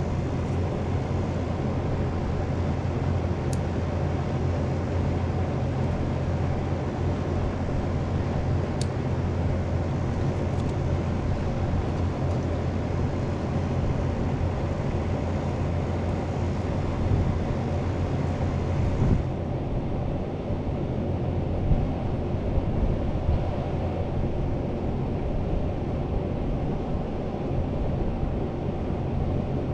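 Air-conditioning outdoor condensing unit running with a steady low hum and hiss; the upper hiss drops away suddenly about two-thirds of the way through while the hum carries on. A couple of faint sharp clicks early on.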